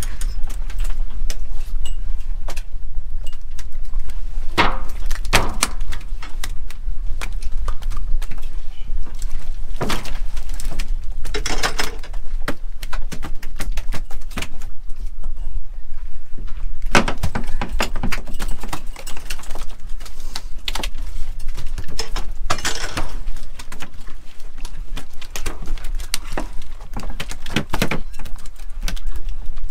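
Steady low rumble on a cod fishing boat at sea, with scattered knocks and clatters every five or six seconds as the crew handle fish and gear on deck.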